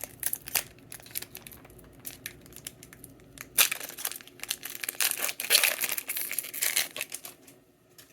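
Foil wrapper of a Pokémon booster pack crinkling and tearing open, with the loudest crackling from about three and a half to seven seconds in.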